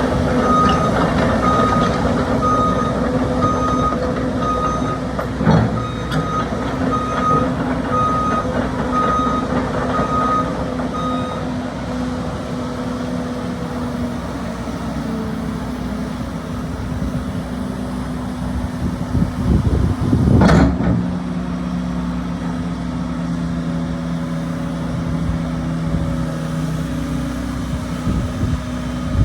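JCB JS160 excavator's diesel engine running steadily while its travel alarm beeps, a little faster than once a second, for the first eleven seconds or so before it stops. About twenty seconds in there is a brief loud rush of noise, and the engine note changes after it.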